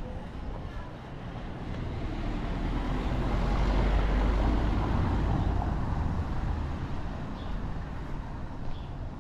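A motor vehicle passing close by on a cobbled street, its noise swelling to a peak about four seconds in and fading away by about seven seconds.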